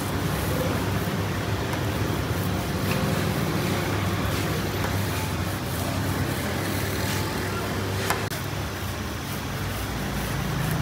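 Steady roadside traffic noise with a low engine hum, and a single sharp click about eight seconds in.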